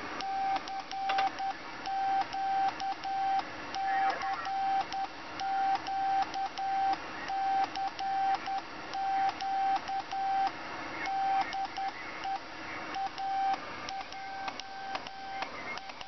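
Arduino-driven automated CW keyer sending a stored Morse message, the CQ call: a steady mid-pitched sidetone beeping in dots and dashes, with a relay click at each key closing and opening.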